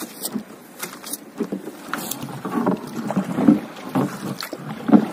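Small wooden-paddled fibreglass boat on the water: irregular splashes and sloshing from paddle strokes, with scattered sharp knocks and clicks of wood against the hull. The two strongest splashes come about three and a half and five seconds in.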